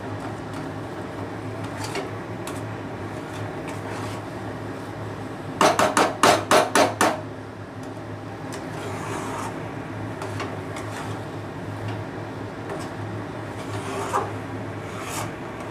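Spatula stirring and scraping a thick soybean-and-potato mash in a pan over a steady low hum, with scattered light clicks. About six seconds in, the spatula knocks against the pan about seven times in quick succession.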